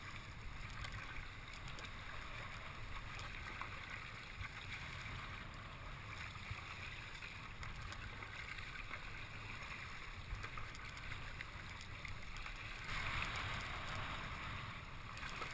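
Water washing around a kayak on open salt water, with wind rumbling on the microphone; the water grows louder about thirteen seconds in.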